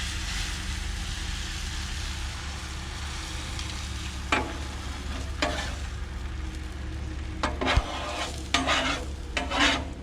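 Three beaten eggs sizzling on a hot flat-top griddle. There are two sharp metallic clinks about halfway through, and a run of scraping, clattering strokes of metal on the griddle in the last few seconds.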